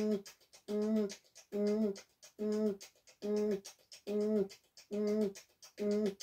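Beatboxing: a hummed note, one short note at the same pitch repeated about once a second with a slight drop at the end of each, with faint mouth clicks in the gaps.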